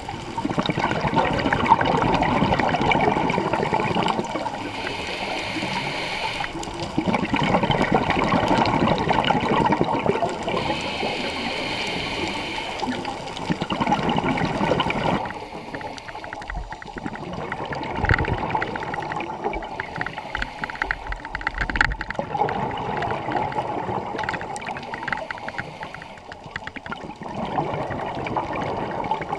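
Scuba regulator breathing underwater: loud rushes of exhaled bubbles alternating with hissing inhalations, in slow cycles of a few seconds. About halfway through the sound drops and grows fainter, with fine crackling clicks between breaths.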